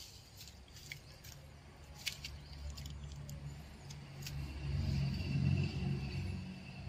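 An engine passing by: a low hum that builds to its loudest about five seconds in and then fades, with a few light clicks near the start.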